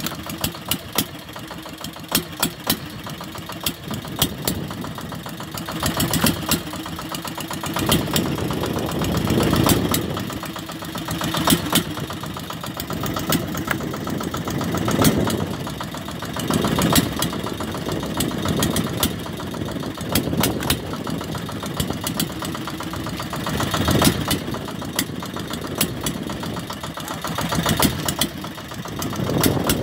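Fishing boat's engine running steadily with a fast knocking beat, while swells of rushing water or wind rise and fall every couple of seconds.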